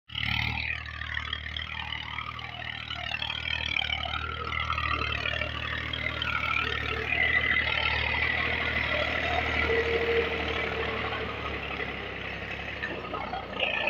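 Massey Ferguson 240 tractor's three-cylinder diesel engine running steadily under load as it pulls a ridge-cutting implement through dry field soil, growing a little louder midway.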